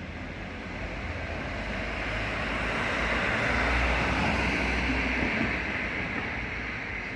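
A road vehicle passing outside: a wash of engine and tyre noise that swells to a peak about halfway through, with a deep rumble, then fades away.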